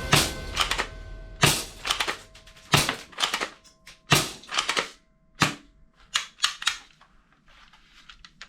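A toy airsoft pistol giving a series of sharp plastic clicks and snaps, about fifteen of them at uneven spacing, loudest in the first half and thinning out toward the end.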